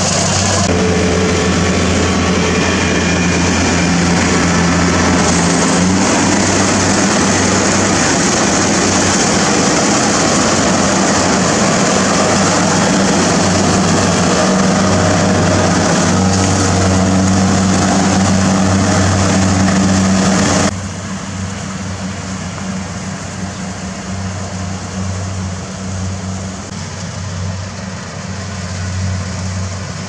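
A motor vehicle engine running steadily with a loud hiss over it. About two-thirds of the way through, the hiss and overall level drop off suddenly, and the engine carries on quieter.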